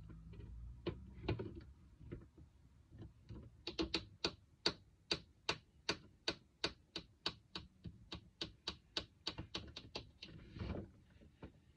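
A run of sharp, evenly spaced plastic clicks, about four a second for some six seconds, as the clear plastic dome lid of a skincare storage box is handled, after a few scattered taps; a softer bump comes near the end.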